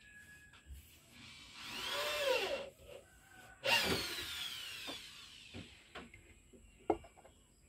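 A small power tool's motor run in two short bursts. The first whines up and cuts off about a second and a half in. The second, louder one starts sharply past the middle and winds down in pitch over a second or so. A few light knocks follow near the end.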